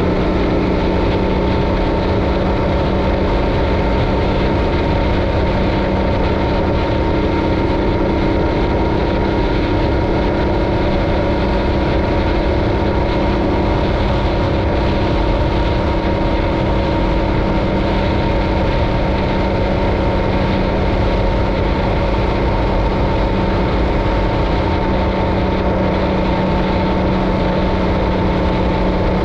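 Yamaha Ténéré 700's 689 cc parallel-twin engine running at a steady cruise, a constant drone with no revving or gear changes.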